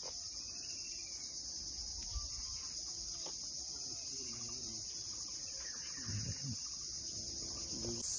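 A steady, high-pitched, unbroken chorus of insects.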